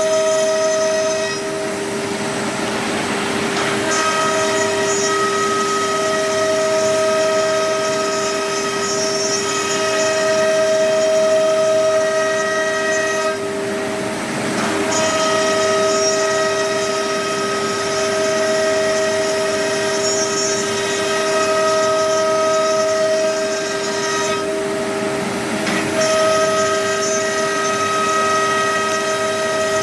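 CNC router spindle running with a steady high whine made of several tones. Three times, for a second or two, the upper tones give way to a rushing noise before the whine returns.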